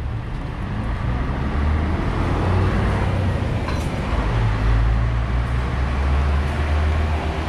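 A city bus engine running at the curb, a steady low drone that grows louder over the first few seconds, over general street and traffic noise.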